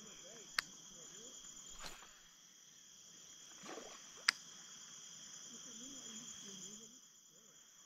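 A steady, high-pitched insect chorus of crickets, with two sharp clicks, one about half a second in and one about four seconds in.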